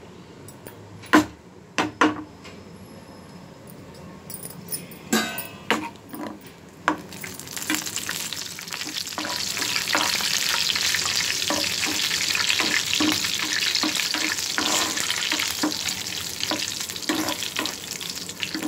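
A few sharp knocks in the first seconds, then cashew pieces sizzling in hot ghee in a nonstick pan, stirred with a spoon as they roast toward brown. The sizzling swells about seven seconds in and stays steady.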